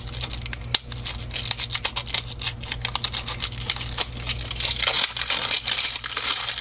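Clear plastic wrap being torn along its perforations and peeled off a plastic toy ball: dense crinkling and crackling made of many small clicks.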